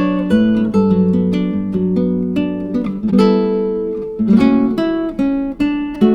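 Background music on acoustic guitar: plucked notes and chords that ring and fade one after another.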